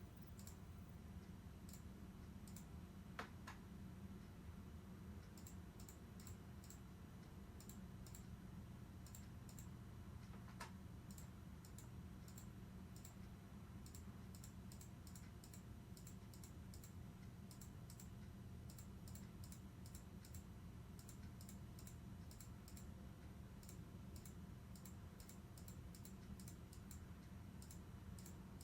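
Near silence with a low steady hum and many faint, short, high-pitched clicks in quick irregular clusters; two slightly louder clicks come about 3 seconds and 10 seconds in.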